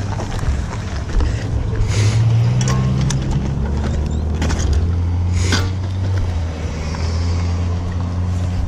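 SSR 125cc pit bike's single-cylinder four-stroke engine running as the bike is ridden, its pitch rising briefly about two seconds in, with a few short clicks and rattles.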